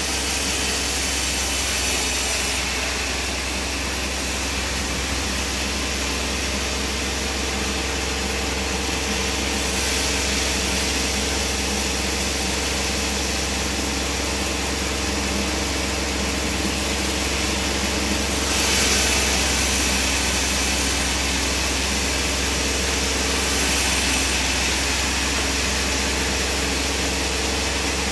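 Band sawmill running steadily, with two brief rises in loudness, a little past halfway and again near the end.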